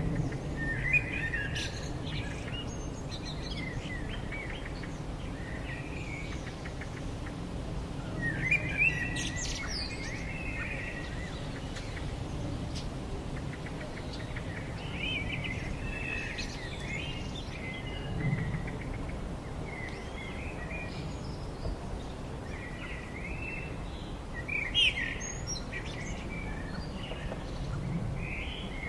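Small birds chirping and calling outdoors in short spells every several seconds, over a steady low background of wind or ambient noise.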